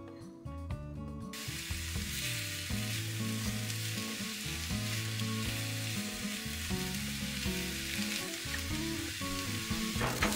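Chopped onion sizzling in oil in a frying pan on a gas burner. The hiss starts about a second in as the onion lands in the hot pan and goes on steadily while it is stirred with a silicone spatula, with a brief clatter near the end. Background music plays underneath.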